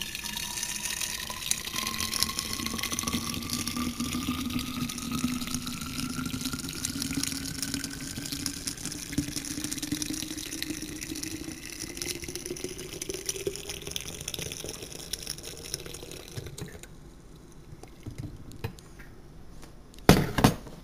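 Hot coffee pouring in a steady stream into a thermos bottle, its pitch rising slowly as the bottle fills, until the pour stops. A few sharp knocks follow near the end.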